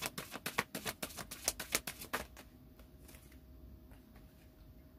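Tarot cards being shuffled: a fast run of crisp card clicks that stops a little over two seconds in, followed by a few faint taps of cards being handled.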